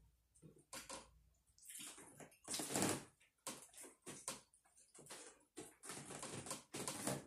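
Close-up eating sounds of someone eating chicken biryani and barbecue: irregular chewing and mouth noises with small handling sounds, loudest a little under three seconds in.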